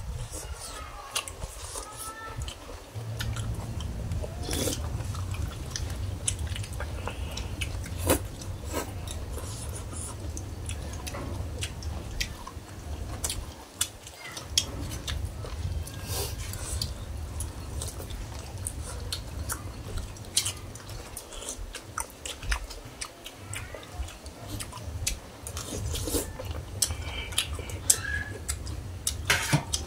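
Several people eating bamboo-shoot curry: chewing, with metal spoons clicking and scraping against the shared tray again and again, over a steady low rumble that sets in about three seconds in.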